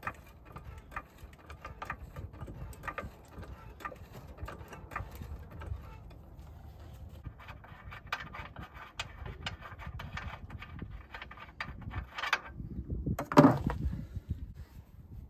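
Floor jack being worked under the truck's lower control arm, raising it: a run of short mechanical clicks and knocks, with one loud clunk about 13 seconds in.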